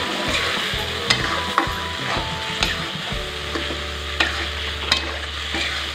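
Steel spatula stirring fried boiled eggs through a thick chili spice paste in a wok, scraping and knocking against the pan over a steady frying sizzle. A low hum comes in about three seconds in.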